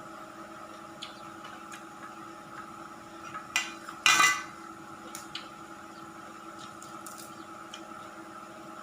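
Utensils and dishes clattering: a couple of clinks about three and a half seconds in, a louder clatter just after, then a few light taps, over a steady background hum.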